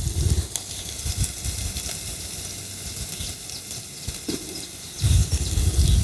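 Food frying in oil with a steady hiss in a small pressure-cooker pot on a camping gas stove. About five seconds in there is a louder burst of sizzling and stirring.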